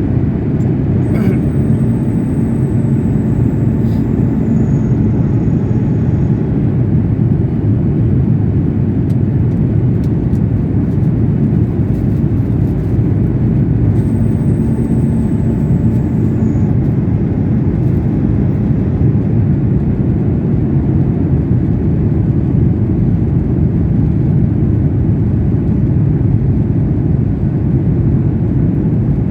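Steady airliner cabin noise on the landing approach: the jet engines and rushing air are heard from inside the cabin. A faint high whine comes in twice for a few seconds each, about a second in and again about fourteen seconds in.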